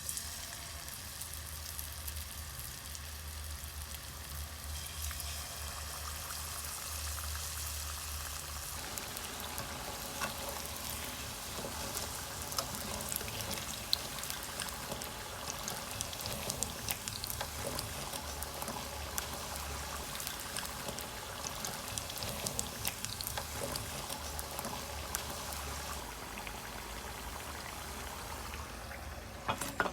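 Potato wedges frying in hot oil: a steady sizzle dotted with many small pops and crackles.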